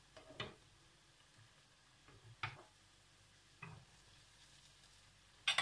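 A slotted metal spoon clicks lightly against the frying pan and the pot of date syrup a few times, spaced out, as fried dough fingers are lifted from the oil into the syrup.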